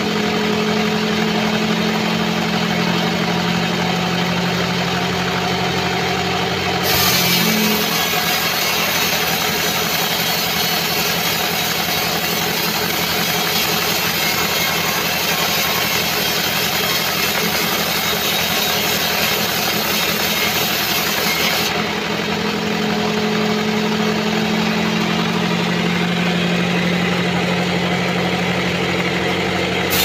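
Sawmill band saw running with a steady machine hum. About seven seconds in, the blade starts cutting through a mahogany log on the carriage and a sawing hiss rises over the hum for about fifteen seconds, after which the saw runs free again.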